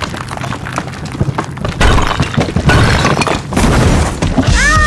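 Brick wall smashing and crumbling: a dense run of crashes and falling rubble that grows louder about two seconds in.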